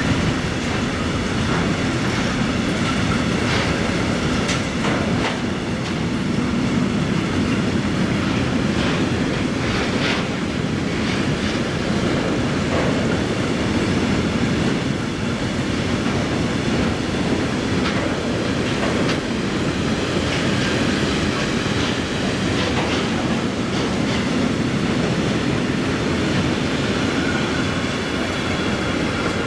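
Freight train of tank wagons rolling past close by: a steady rumble of steel wheels on rail, with scattered clicks and clacks as the wheels cross rail joints.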